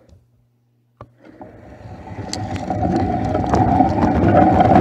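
Homemade tape-measure-powered car with CD wheels setting off and rolling across a smooth floor, heard from a camera riding on board. There is a click about a second in, then a rolling whirr of wheels and axle drive with small rattling ticks that grows steadily louder as the car picks up speed.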